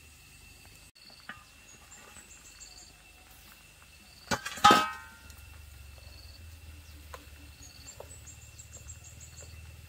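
Metal bowl lid clanking twice with a short metallic ring as it comes off a wooden rice steamer over a wood fire, a little past the middle. Around it, a steady high whine and small bird chirps, with a low rumble from the fire and steam afterwards.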